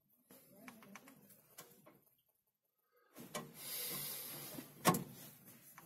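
Faint metallic clicks and handling noise from hands and tools on a Tata 1613 diesel engine's valve rockers during tappet adjustment. A short rustling hiss comes a little past halfway, then one sharp click near the end.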